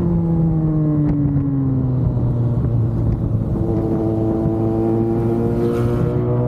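Yamaha FZ6's 600 cc inline-four engine under way. Its pitch drops over the first two seconds as it slows, holds briefly, then climbs steadily from about halfway as it accelerates again.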